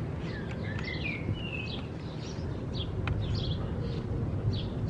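Birds chirping and singing over a steady low outdoor rumble, with a sharp click about three seconds in.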